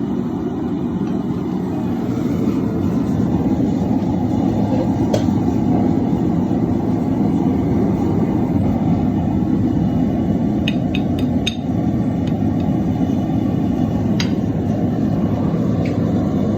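Propane forge burner running with a steady, loud roar, with a few sharp metallic clinks, a small cluster of them a little past the middle.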